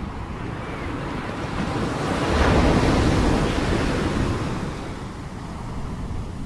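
Sea surf: a wave rolls in and breaks, swelling to its loudest about two and a half seconds in, then washing back down to a steady wash of surf.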